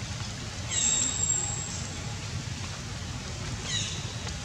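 Steady hiss of rain with a low rumble, with two high-pitched animal calls over it: a loud, rising call about a second in, and a shorter one near the end.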